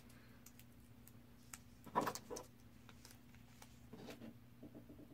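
Faint handling sounds of cut paper and a glass light bulb: scattered small taps and rustles, with a brief louder sound about two seconds in, over a steady low electrical hum.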